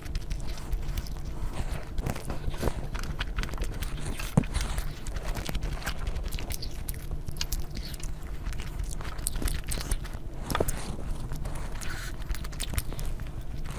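Close-miked eating sounds: a person chewing and biting, with many irregular wet mouth clicks and smacks over a steady low hum.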